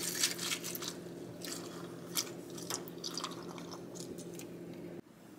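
Almond milk poured from a carton into a glass bowl of cereal flakes: a faint trickle and splash with scattered crackles, over a low steady hum that stops near the end.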